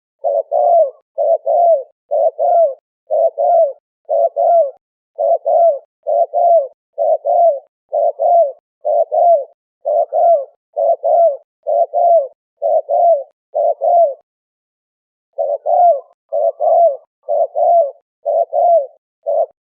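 Spotted dove (terkukur) cooing: a fast run of short, paired low coos, about one pair a second, with a brief break a little past two-thirds of the way through.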